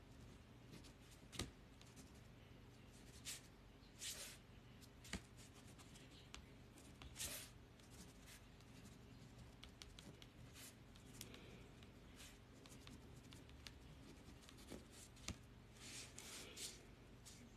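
Near silence: quiet room tone with scattered faint clicks and short rustles, one sharper click about a second and a half in and a small cluster near the end.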